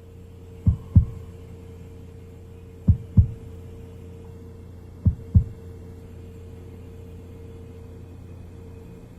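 Heartbeat sound effect: three double thumps, lub-dub, about two seconds apart, over a low steady hum.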